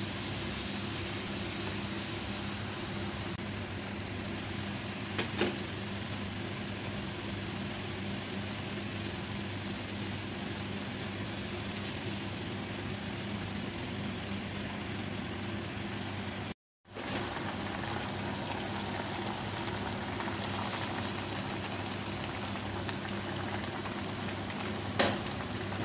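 Seblak broth with enoki mushrooms, meatballs and chillies boiling in a pan: a steady bubbling hiss. A metal spoon knocks against the pan about five seconds in and again near the end.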